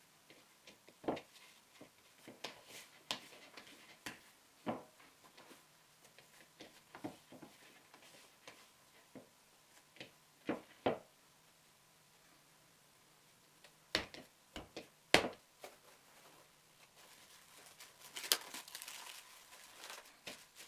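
Hands kneading glutinous rice dough in a wooden bowl: scattered soft knocks and taps of hands and dough against the wood. Near the end, plastic cling film crinkles as the dough is wrapped in it.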